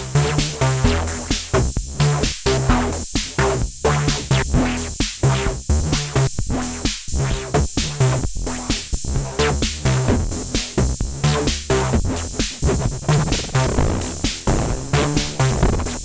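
Erica Synths Bassline analogue bass synthesizer playing a fast sequenced pattern of short bass notes that step in pitch, over a drum machine beat.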